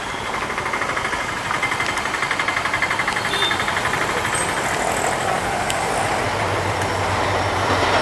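Diesel locomotive at the head of a passenger train passing close, its engine running and wheels rumbling and clattering over the track, with a rapid rhythmic pulsing for the first few seconds. A low engine hum grows stronger near the end as the locomotive draws level.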